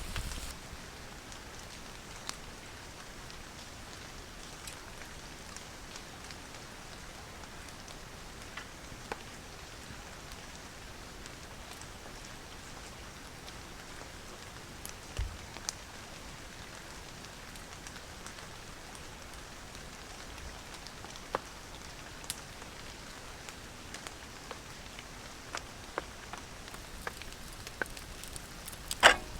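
Steady rain, an even hiss with scattered sharp ticks of single drops, and a brief louder cluster of ticks just before the end.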